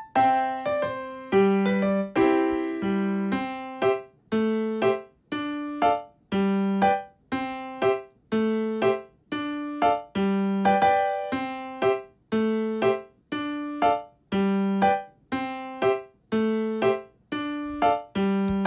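Background music: a light piano-style keyboard tune, notes and chords struck in a steady, even rhythm, each one dying away before the next.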